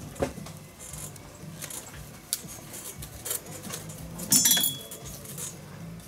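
Metal pliers clicking and clinking against a baseball glove's leather lace as the lace is gripped and pulled through the fingertips, in scattered light clicks. The loudest is a brief metallic clink with a short ring about four seconds in.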